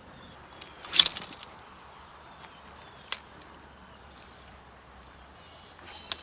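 An ultralight spinning rod being cast: a sharp swish about a second in, a single click a couple of seconds later, and a few light clicks near the end, over a faint steady background hiss.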